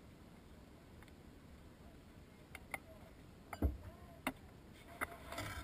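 Scattered sharp clicks and knocks over a faint low rumble, starting about halfway through and coming closer together near the end.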